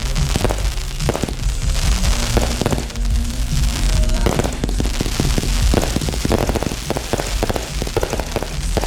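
Fireworks going off in quick succession: many sharp bangs and crackles from exploding shells, thickest in the second half, with music with a steady bass playing under them.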